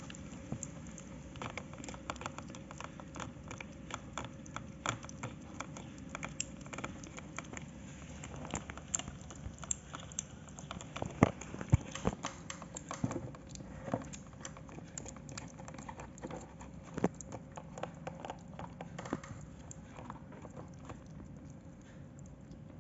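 Two kittens eating wet cat food from a glass plate: irregular small wet smacking and chewing clicks throughout, with a couple of louder knocks about eleven and twelve seconds in. A faint steady hum runs underneath.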